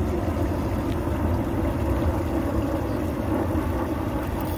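Wind buffeting the microphone: a steady low rumble with no distinct tones.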